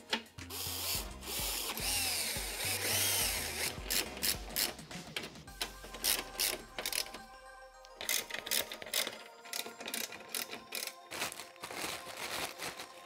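Hand ratchet clicking in quick runs as a bracket screw is turned, over background music.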